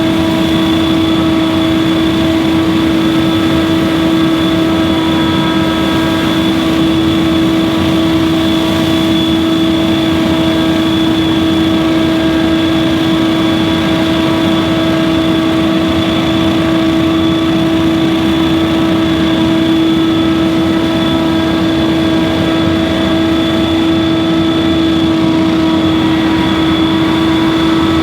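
Scag Windstorm stand-on leaf blower running steadily, its engine holding one unchanging pitch over the rush of the blower fan.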